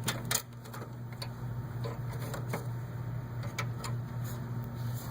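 Scattered clicks and light knocks, about eight in five seconds, as hands move cables and handle the workstation's case and side cover, over a steady low hum.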